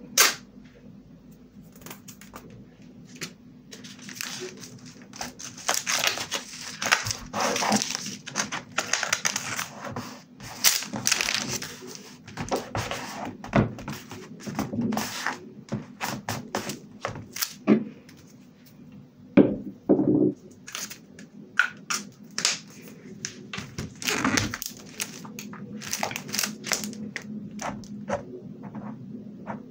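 Close-miked paper crafting sounds: a torn strip of paper being handled and rustled, with hands patting and smoothing down journal pages in soft thunks and taps. Near the end a fineliner pen touches the page.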